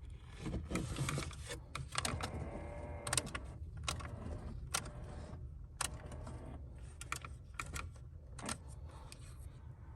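Irregular sharp clicks and light rattling from dashboard buttons and switches being pressed by hand, with no steady rhythm, over a low hum.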